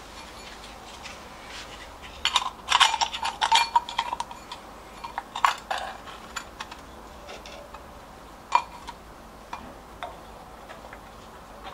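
Small metal parts clinking and scraping as a metal bowl is handled against a fitting on a Lister LR1 diesel engine. There is a busy run of clinks about two to four seconds in, another short cluster around five and a half seconds, a single sharp clink near nine seconds, and light scattered ticks in between.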